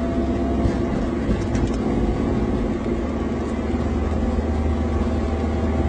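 Steady engine and road noise of a motor vehicle driving along, a constant low rumble without revving.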